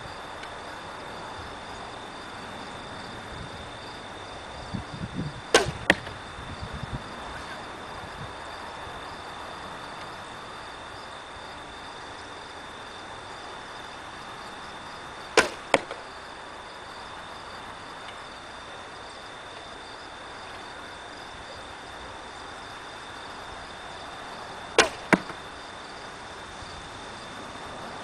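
Old wooden Ben Pearson Razorback recurve bow (62", 45 lb) shot three times, about ten seconds apart. Each shot is a sharp snap of the released string, followed a few tenths of a second later by a second crack as the heavy cedar arrow strikes the target. A steady high-pitched hum runs underneath.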